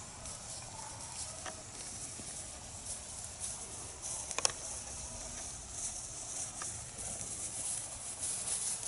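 Quiet pasture ambience: a steady high hiss and a low rumble, with a few faint clicks and one sharper click about four and a half seconds in.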